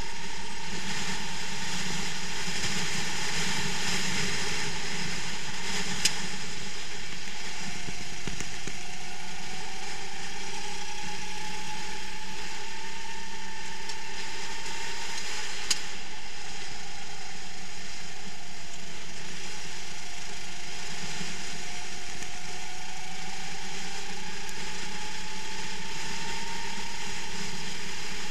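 Racing kart engine running hard, heard from on board over a steady rush, its pitch dropping and climbing again as the kart slows for corners and speeds up on the straights. Two sharp clicks stand out, about six and sixteen seconds in.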